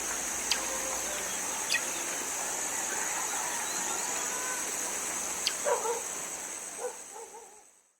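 Outdoor ambience with a steady high hiss and a few sharp clicks, then a short animal call about six seconds in. The sound fades out near the end.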